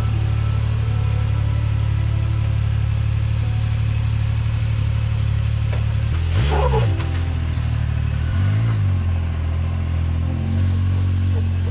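Rally buggy engine running steadily, then revved up and back down twice, about six and eight and a half seconds in.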